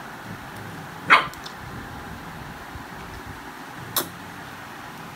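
A pet dog barks once, a single short bark about a second in. A fainter, sharper tick follows about three seconds later.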